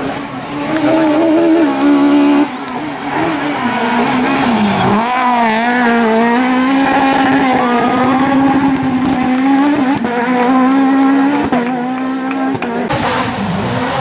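Peugeot 306 Maxi kit car's high-revving four-cylinder rally engine, held at high revs with brief dips and rises in pitch, while the tyres squeal as the car slides sideways through a bend.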